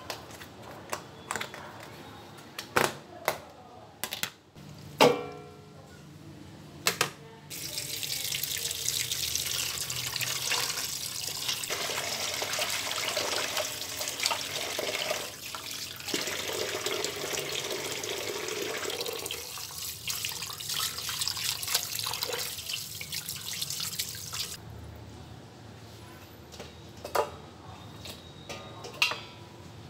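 Kitchen tap water running steadily for about seventeen seconds, starting abruptly about seven seconds in and stopping just as suddenly. Before and after it come sharp knocks and clatter of kitchen things being handled, with a steel pot and its lid near the end.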